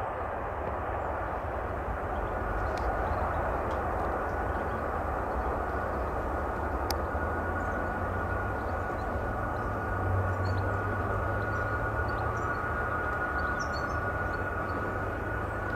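Heavy jet aircraft engines running, a steady rushing noise with a thin high whine that sets in about two seconds in.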